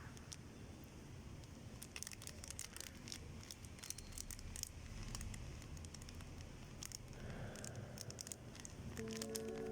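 Faint crinkling and scattered light clicks of a small plastic packet of sequins being handled. Background music comes in near the end.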